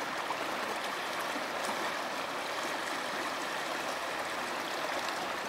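Shallow water flowing, a steady even rushing wash.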